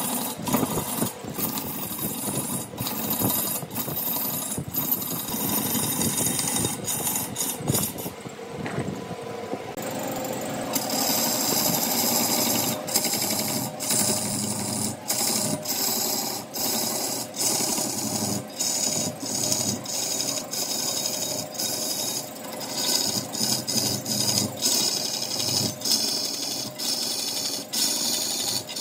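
Wood lathe turning a large wood blank while a turning tool cuts it: a fast, uneven run of knocks over steady scraping. The high scraping drops out for a couple of seconds about eight seconds in, then resumes.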